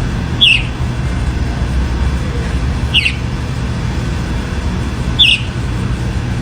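Chalk-browed mockingbird giving three short, sharp, falling notes about two and a half seconds apart, over a steady low rumble like distant traffic.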